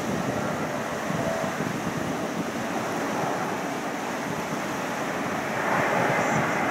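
Distant jet noise from a four-engined Airbus A340-300 (CFM56 turbofans) flying a display pass: a steady rushing sound that grows louder about six seconds in as the airliner comes closer.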